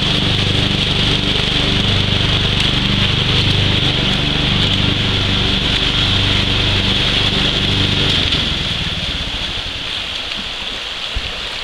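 Shallow river water rushing over rapids, a steady hiss. A low hum underneath fades away about eight seconds in.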